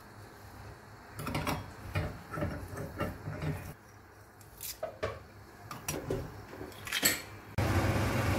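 Kitchen handling sounds as herbs and whole spices are tipped into a steel pot of water: soft rustles, light knocks and a few sharp clicks. Near the end a steady low rumble starts abruptly.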